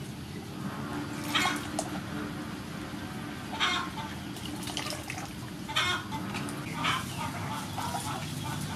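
Chickens clucking a few times, short separate calls spread across several seconds over a steady low background.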